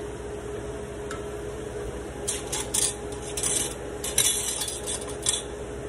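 Slotted wooden spoon clacking and scraping against cookware and a glass dish, a scatter of sharp knocks from about two seconds in that stops near the end, over a steady background hum.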